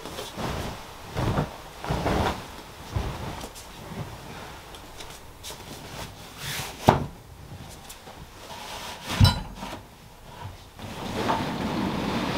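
Bedding being stripped and a mattress handled: fabric rustling as the covers and sheet are pulled off, with scattered dull knocks and bumps, the two sharpest about seven and nine seconds in, as the mattress is shifted and tipped up on a slatted wooden bed base.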